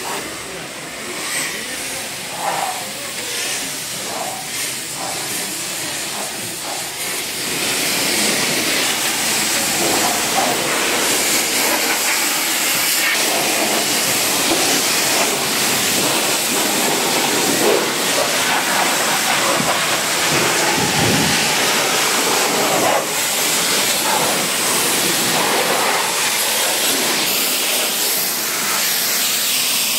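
A steady, loud hiss that swells about eight seconds in and then holds level.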